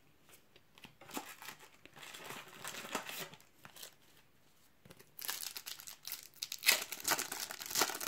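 Foil Panini trading-card sachets crinkling as they are handled, then one being torn open. The crinkling stops briefly about four seconds in and comes back louder.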